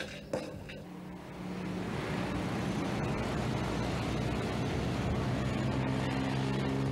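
A car driving up, its engine and tyre noise getting steadily louder as it approaches, with a low engine hum growing in the second half. A couple of short knocks come right at the start.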